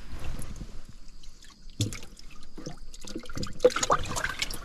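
Water splashing and sloshing in a metal tin box as a hand puts a freshly caught fish into it and the fish flaps in the water. The splashing is heaviest near the end, with a couple of short knocks in between.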